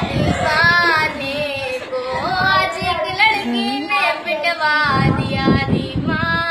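A girl singing a verse of poetry unaccompanied, in a high voice with long, wavering held notes.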